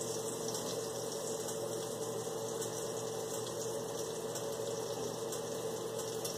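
Window air conditioner running with a steady hum and hiss.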